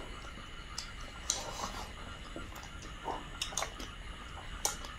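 Eating sounds: chewing and wet lip smacks, with a few short sharp mouth clicks spread through.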